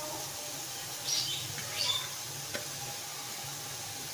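Plastic chopper bowl squeaking and scraping against an aluminium pan as chopped onion is knocked out of it: two short squeaks about one and two seconds in, the second falling in pitch, then a light knock, over a low steady hum.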